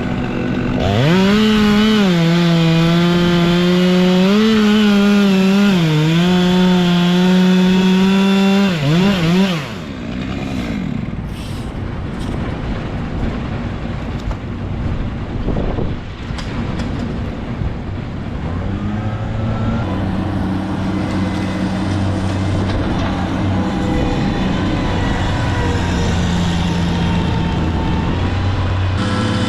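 Chainsaw running at high revs, its pitch dipping and recovering as it cuts, for about nine seconds before it stops. After it, a truck engine idles steadily.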